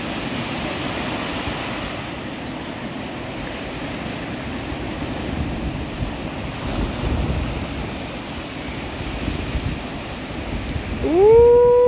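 Surf breaking and washing up the beach, with wind buffeting the microphone. About a second before the end a person lets out a loud, drawn-out shout that rises in pitch and then holds.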